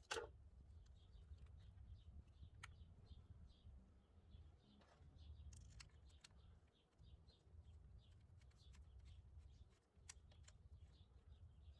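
Near silence: faint birds chirping over and over in the background, with a low steady rumble and a few faint clicks.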